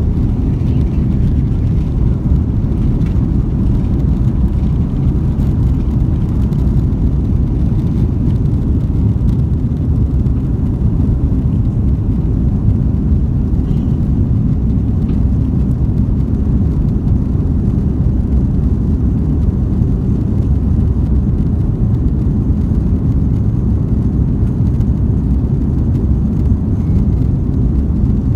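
An Airbus A330-300's Rolls-Royce Trent 700 engines at takeoff thrust, heard inside the cabin: a loud, steady low roar mixed with rushing air as the airliner lifts off and climbs out.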